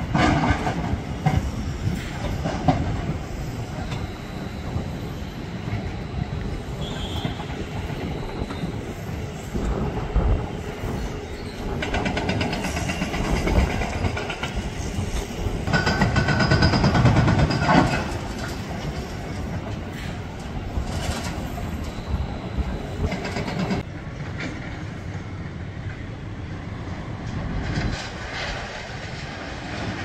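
Heavy demolition machinery, excavators tearing down a steel-roofed hall, heard as a continuous mechanical rumble with metal clanking and squealing. It is loudest about sixteen to eighteen seconds in.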